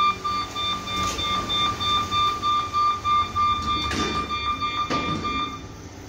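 Otis goods lift's door warning buzzer: a high electronic beep pulsing several times a second while the doors close, cutting off near the end, with a couple of knocks from the closing doors.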